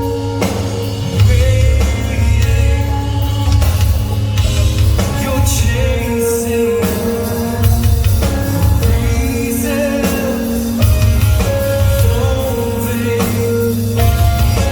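Live rock band playing loudly, with sung vocals over electric guitars, bass and drum kit.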